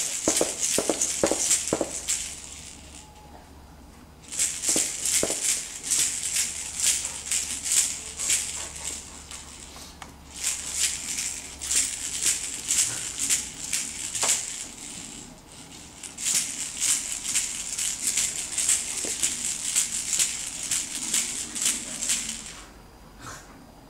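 Baby's toy rattle shaken in four spells of quick rattling, each a few seconds long, with short pauses between.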